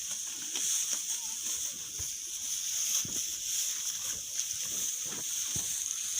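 Cattle sounds with scattered knocks and sloshing water, over a steady high hiss.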